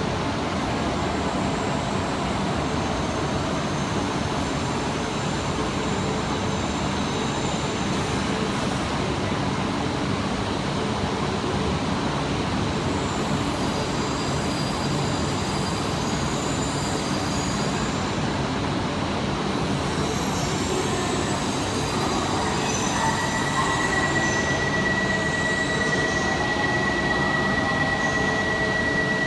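Shinkansen train running along an underground station platform, a steady rumble of wheels and air. About two-thirds of the way in, a high steady whine sets in and holds.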